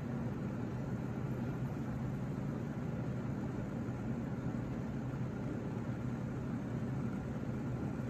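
A steady low hum with an even hiss over it, the sound of a heater running.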